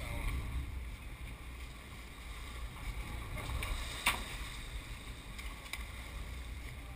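Low, steady rumble of a sport-fishing boat's engines, with wind on the microphone. A single sharp knock about four seconds in.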